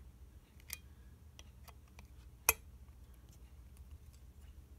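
Small screwdriver working a tight screw in a Colt Official Police revolver's frame: scattered light metallic ticks, a click under a second in and a sharper, louder click about two and a half seconds in.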